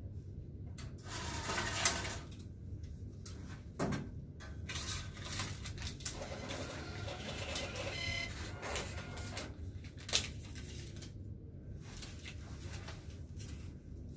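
Cash deposit machine's built-in receipt printer running in spells, with a few sharp clicks, the loudest about two seconds in and another about ten seconds in.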